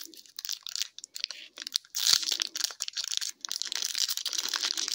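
Foil wrapper of a hockey card pack being torn open and crinkled between the fingers: scattered small crackles at first, then denser, louder crinkling from about two seconds in.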